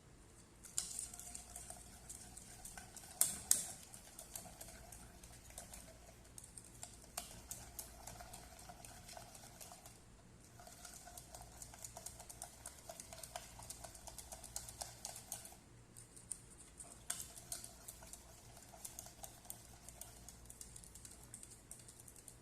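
A utensil scraping and clicking rapidly against a bowl, in runs of several seconds separated by short pauses.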